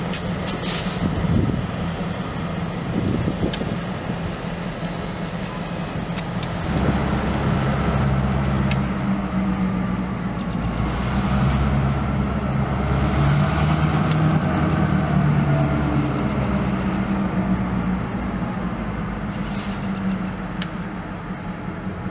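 Two diesel-electric locomotives running as they roll slowly along the track. Their engines make a steady low drone that grows louder and heavier about seven seconds in, with a few brief high squeals near the start.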